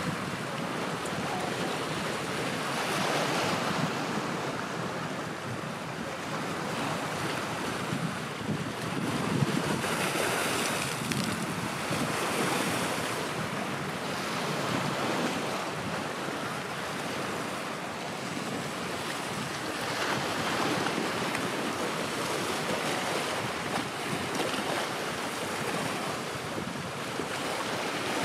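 Wind buffeting the microphone over the wash of sea waves: a steady rushing noise that swells and eases every few seconds.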